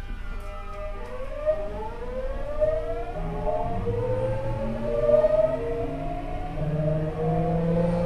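Tokyu 9000 series electric train's Hitachi GTO-thyristor VVVF inverter and traction motors whining as the train starts off and accelerates. Several tones rise together in pitch from about a second in, over a low running hum that builds up.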